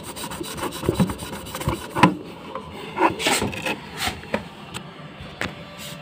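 A sponge scrubbing back and forth over the glass of a washing machine door, rubbing off limescale, in a run of uneven scraping strokes.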